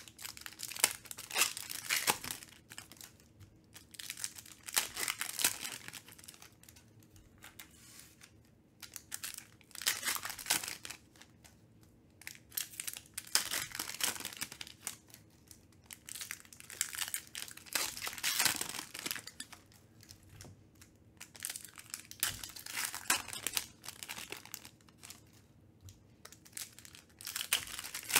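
Foil trading-card pack wrappers being torn open and crinkled by hand, in bursts every few seconds with short quieter gaps between.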